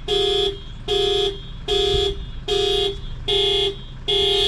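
An alarm going off: a steady, repeating electronic beep of one fixed pitch, about one and a quarter beeps a second, each lasting about half a second.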